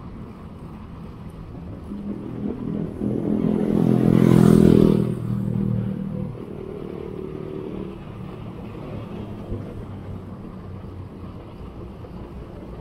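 A motor vehicle's engine passes close by, building from about two seconds in to a loud peak around four to five seconds, then fading away over the steady road noise of riding.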